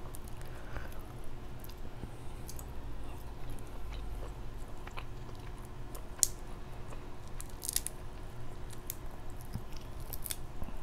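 A person chewing and smacking food, with scattered sharp wet clicks from the mouth; the loudest click comes about six seconds in.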